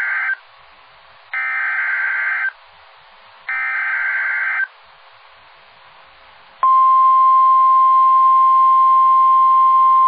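NOAA Weather Radio station WNG674 sending an Emergency Alert System (SAME) header over the air. It is the end of one warbling data burst, then two more, each about a second long and a second apart. About six and a half seconds in, the steady single-pitch 1050 Hz warning alarm tone starts and holds. Together they announce a coordinated EAS test alert.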